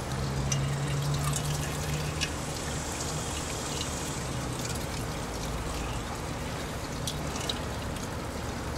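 Water-and-alcohol liquid dribbling out of a cloth bundle of wet black-powder mix as it is wrung by hand, running into a metal colander and the bowl beneath.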